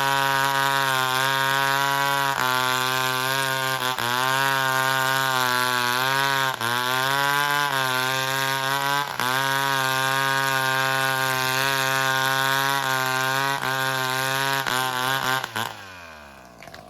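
Two-stroke chainsaw running at high revs, its pitch sagging briefly several times as it cuts into wood. Near the end the throttle is released and it winds down toward idle.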